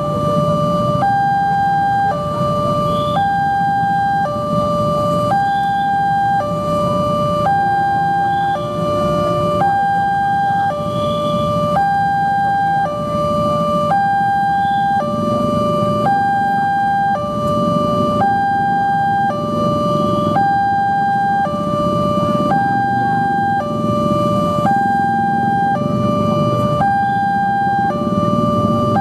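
Electronic railway level-crossing alarm of the Indonesian 'flip-flop' type, sounding a steady two-tone warning that switches pitch about once a second: the crossing is closed for an approaching train. A low traffic rumble runs underneath.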